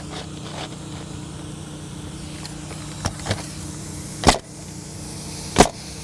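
Pneumatic roofing nailer driving nails through asphalt shingles: two sharp, loud shots about a second and a half apart in the second half, after a couple of lighter knocks, over a steady low motor hum.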